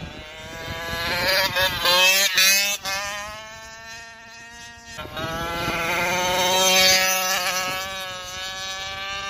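Racing GoPed scooter's small two-stroke engine at high revs, its buzzing note rising and falling as the scooter passes and is pushed through a corner, loudest about two seconds in and again around seven seconds.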